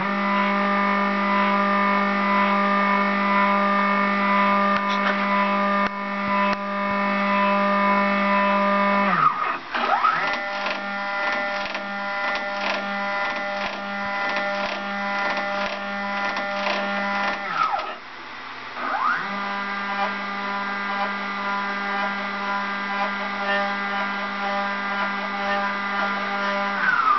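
Stepper motors of a CNC router, run by a Gecko G540 drive, moving the axes in three long jogs. Each is a steady whine that rises in pitch as the motor speeds up and falls as it slows to a stop.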